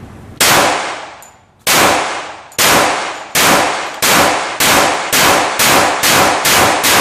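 Ten shots from a Glock 21C .45 ACP pistol with compensated slide and barrel, each ringing out as it fades. The first comes about half a second in, and the pace quickens from over a second between shots to about half a second near the end.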